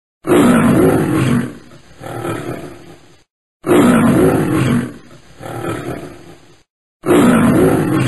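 Male lion roaring: a loud call of about a second followed by a fainter one. The same roar sounds again after a short silent gap, and a third time near the end.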